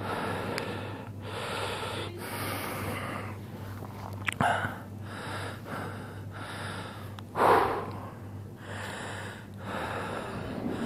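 A man breathing in and out in a steady rhythm, picked up close by a helmet-mounted camera's microphone, over a steady low hum. One louder breath comes about seven and a half seconds in.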